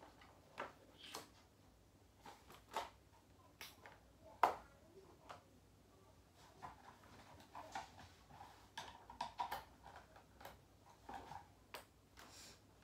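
Faint, scattered small clicks, taps and rustles of handling noise, with one sharper tap about four and a half seconds in.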